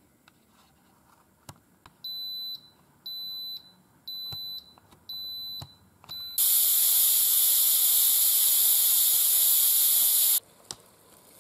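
Instant Pot Ultra electric pressure cooker beeping five times, about once a second, as its cook timer reaches zero. Then a loud, steady hiss of steam venting from the pressure-release valve for about four seconds, which cuts off suddenly.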